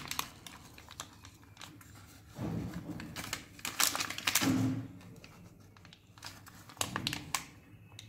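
Butter paper crinkling and light clicks and taps as a steel plate holding a hot jaggery mixture is handled and tilted to spread it, in short bursts with quieter gaps between.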